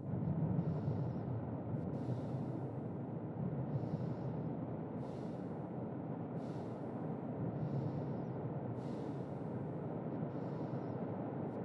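Slow, even breathing of a sleeping person, each breath a soft airy hiss coming every second or two, over a steady low rumble of storm noise.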